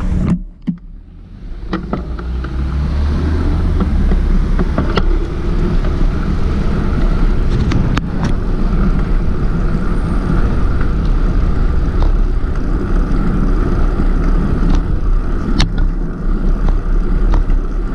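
Steady low rumble of road and traffic noise heard while riding a bicycle, with a few sharp clicks. It drops away briefly just after the start, then builds back up.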